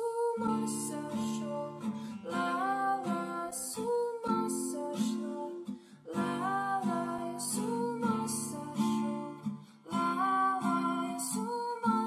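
Background music led by a strummed acoustic guitar, with a melody line over it.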